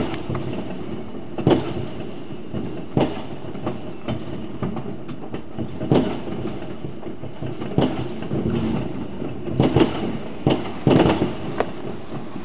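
Fireworks going off all around at a distance: many sharp bangs at irregular intervals over a steady background crackle and rumble, with the bangs coming thicker near the end.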